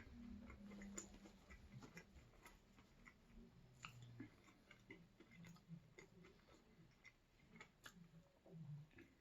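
Faint chewing, with scattered soft mouth clicks.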